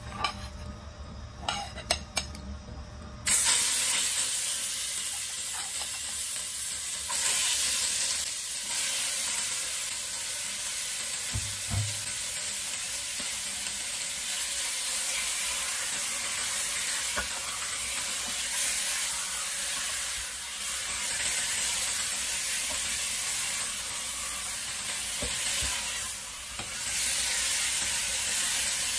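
Chicken pieces sizzling in hot oil in a stainless steel pot, stirred and turned with a plastic spatula. The sizzle starts suddenly about three seconds in, after a few light clicks, and then runs on evenly.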